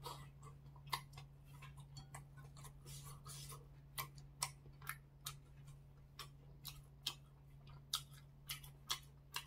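Eating sounds: faint, irregular sharp clicks from chewing and from wooden chopsticks picking food out of a bowl, over a steady low hum.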